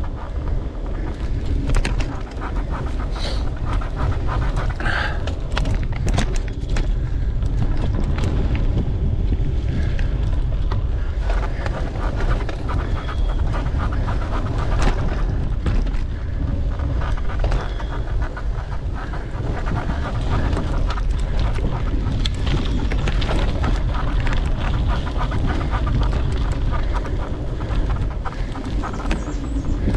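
Mountain bike ride on a dirt trail: wind buffets the microphone and the bike clicks and rattles over the bumps, while the rider breathes hard.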